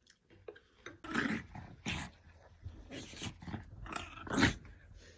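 A pet dog vocalizing in a string of short sounds, about two a second.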